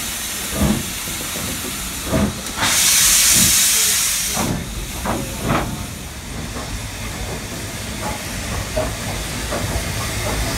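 Steam locomotive hissing steadily, with a louder blast of steam from about three to four and a half seconds in and a few short, irregular beats.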